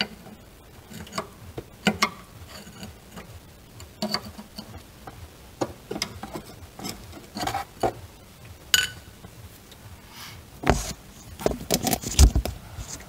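Flat screwdriver scraping and clicking against a steel brake-line retaining clip on a rusty rear axle beam as the clip is pried back, in scattered light clicks, with a few louder knocks near the end.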